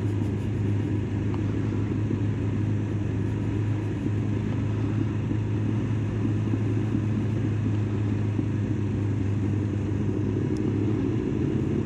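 Kawasaki ZX-9R's inline-four engine running at steady low revs through a noisy exhaust, a constant low drone while the motorcycle rolls slowly along.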